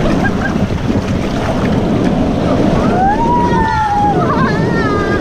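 Rushing water and wind buffeting the microphone on a water park ride. About three seconds in, a person gives a brief high-pitched cry that rises and then falls.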